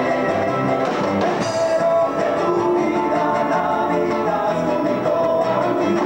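Andean folk band playing live: voices singing over strummed guitar and charango, with a steady beat from hand drums.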